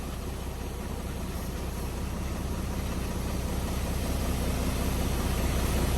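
Concrete mixer truck's diesel engine running steadily, growing gradually louder.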